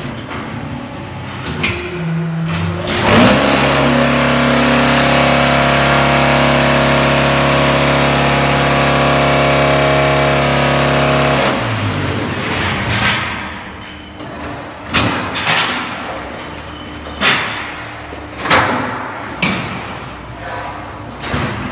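Hydraulic concrete block making machine running a production cycle: about three seconds in, its vibration starts with a steady loud hum that holds for about eight seconds, the compaction stage, then stops abruptly. After that comes a series of separate clanks and knocks as the machine moves.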